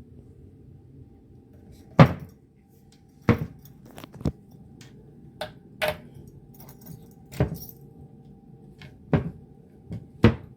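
A plastic fridge lock and its small keys being handled: a string of about ten sharp clicks and knocks at uneven intervals, the loudest about two seconds in.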